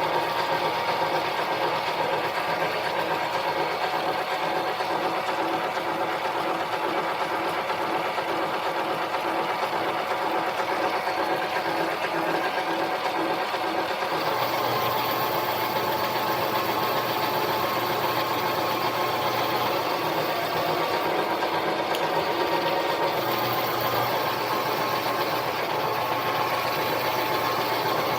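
Harbor Freight mini metal lathe running steadily under cut while a 1-inch hole is worked through a metal spacer. Its hum and whine change character about halfway through.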